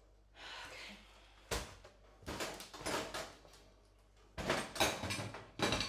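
Kitchen drawers and cupboards opened and shut, with utensils rattling, in a hurried search through the kitchen. A short scuffle, a sharp knock about a second and a half in, then two spells of clattering.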